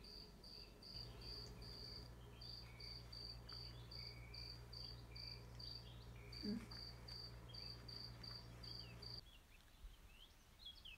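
Faint insect chirping: a short high chirp repeated about three times a second over a low steady hum. The chirping stops near the end.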